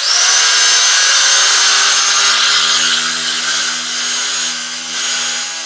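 Electric carving knife running steadily as its reciprocating blades cut through slab foam: a motor hum with a high whine, starting abruptly.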